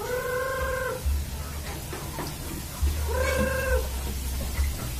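Free-range village chickens (ayam kampung) giving two drawn-out, level-pitched calls, one at the start and one about three seconds in, over a low rumble.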